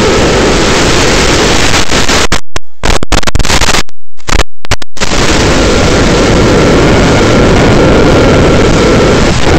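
Loud, even rushing noise in an FPV quadcopter's flight recording. It cuts out abruptly to silence for moments, around two and a half seconds in and again at about four to five seconds.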